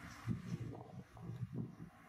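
Outdoor ambience: uneven wind rumble on the microphone, with a few faint, high bird chirps now and then.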